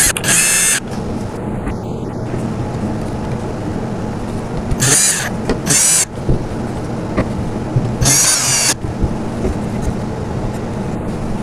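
Cordless drill driving wood screws into a wooden high chair panel, in four short bursts of a second or less: near the start, twice about five and six seconds in, and once about eight seconds in.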